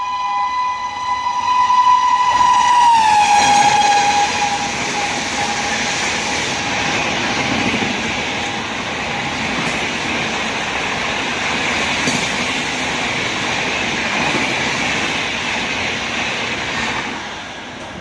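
A WAP7 electric locomotive's horn is held as a steady chord. Its pitch drops sharply about three seconds in as the express passes at high speed, and it then fades over the next few seconds. After that comes the loud rushing and clatter of the train's coaches running through at speed, with a few sharp wheel clacks, falling away near the end.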